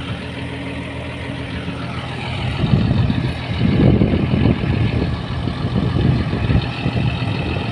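Deutz-Fahr combine harvester's engine running steadily. A heavier, rougher rumble comes in about two and a half seconds in and eases off near the end.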